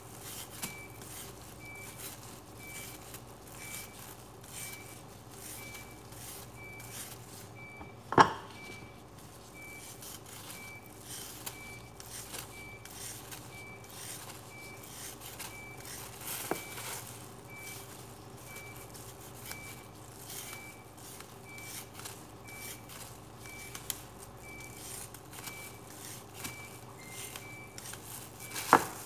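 Julienne peeler scraping down a raw carrot in repeated strokes, shredding it into thin strips, with a sharp knock about eight seconds in and another near the end. A faint high beep repeats about twice a second over a steady low hum.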